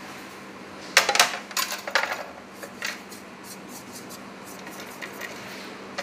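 Crockery clinking and knocking as a plate of sifted flour and cocoa is tipped and tapped against the rim of a mixing bowl: a quick cluster of clinks about a second in, another near three seconds, then lighter scattered ticks.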